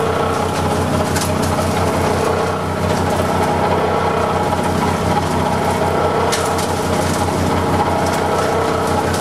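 Belt-driven hammer mill running steadily and pulverizing dry clay, with the low, rhythmic pulse of the tractor engine that drives it through a flat belt from its belt pulley. A few sharp clatters come as clay is shoveled into the hopper.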